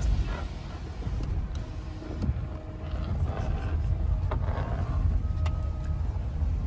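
Low, steady rumble of a vehicle's engine and tyres heard from inside the cabin while driving slowly.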